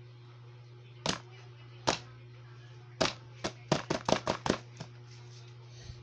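Hands patting and pressing a sheet of paper flat on a plastic lap desk, making sharp taps: two about a second apart, then a quick run of about nine. A steady low hum runs underneath.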